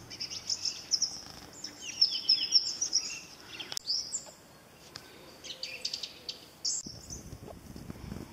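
Small birds chirping in quick, busy runs of high notes, with a brief lull about midway.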